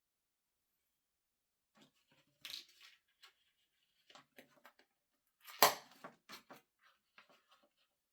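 Scattered small clicks, scrapes and taps of a screwdriver and screws being worked out of a graphics card's cooler, with one louder knock about five and a half seconds in.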